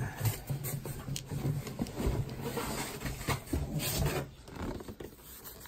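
Rubbing and rustling of things being handled, with scattered light knocks and clicks: someone reaching for and moving an item, likely packaging or a tool kit.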